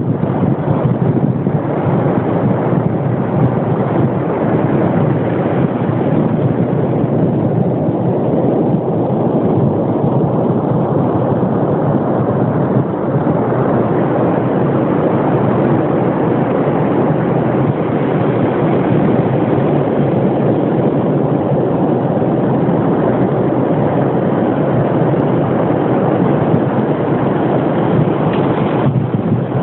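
Steady, loud rushing noise of wind and surf on a beach, unbroken throughout.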